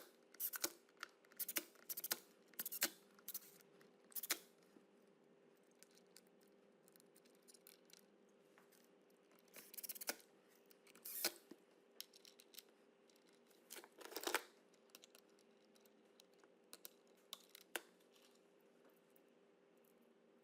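Scattered small clicks and scrapes of a screwdriver and screws working on the plastic housing of a Makita UC3541A electric chainsaw as it is screwed back together, over a faint steady hum.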